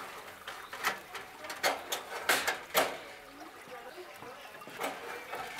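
Metal grate tray of an overhead infrared gas grill sliding back in under the burner, then a run of sharp metallic clicks and knocks. The loudest knocks come a little over two seconds in.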